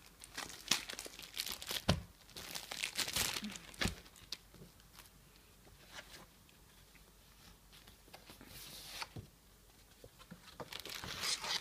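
Clear plastic packaging crinkling and tearing as it is opened and pulled off a folded bed sheet, in bursts of crackling, with a quieter stretch in the middle.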